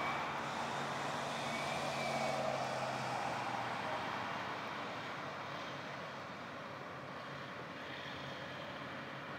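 Distant engine noise fading away over the first few seconds, with a low steady engine hum that stops about three and a half seconds in.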